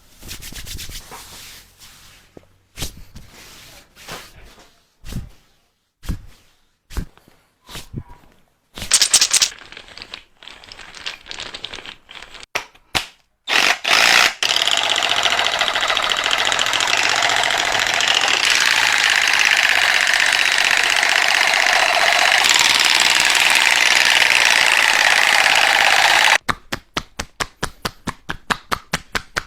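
Cupping sounds: scattered pops and clicks of cups on skin. Then a steady, rapid buzzing rattle runs for about twelve seconds, and a quick, even run of clicks follows near the end.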